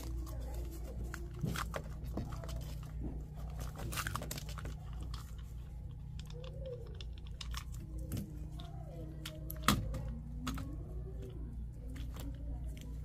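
Scattered clicks and knocks of a condensate float switch being handled and fitted to an air handler's drain pan, over a steady low hum. One knock just under ten seconds in stands out as the loudest.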